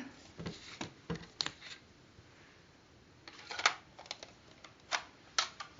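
Scattered small clicks and knocks of handling close to the microphone, in short groups with a quiet gap of about a second and a half in the middle.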